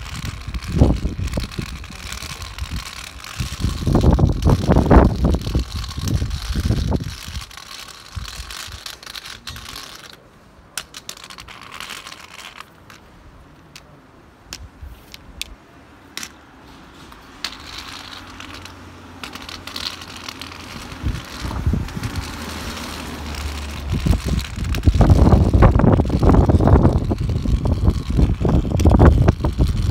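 Recycling truck on a cardboard collection route, running, with two long loud spells of low rumble, one a few seconds in and one near the end, and scattered clanks and rattles in the quieter stretch between.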